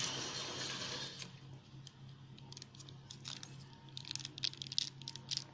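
Plastic shampoo sachet crinkling and crackling as it is squeezed out into a glass bowl: a rustle in the first second, then scattered crackles that come thicker about four seconds in.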